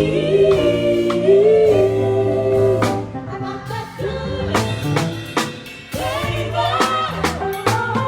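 Gospel vocal group singing in harmony with a live band: drum kit, bass and keyboard, loudly amplified in a rehearsal.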